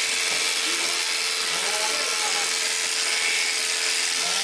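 Electric sheep shears running with a steady buzz as they cut through the fleece around a sheep's neck.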